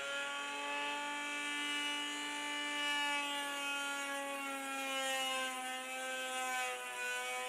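Electric wood router running steadily while rounding over board edges: a sustained motor whine whose pitch drifts slightly, dipping a little near the end.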